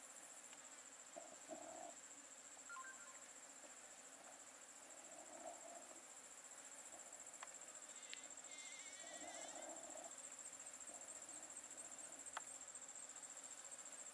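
Faint, steady high-pitched chirring of forest insects such as crickets. A short high twittering call comes a little past halfway, and there are a couple of sharp clicks.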